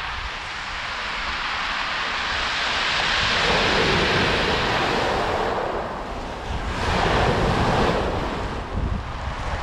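Sea waves breaking and washing up the shore, swelling twice, with wind rumbling on the microphone.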